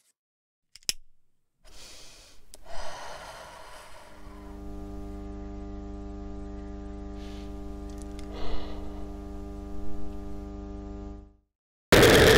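A steady electrical hum with many overtones sets in about four seconds in, with a couple of brief soft noises over it, and cuts off shortly before the end. A sudden, much louder burst of noise follows right at the end.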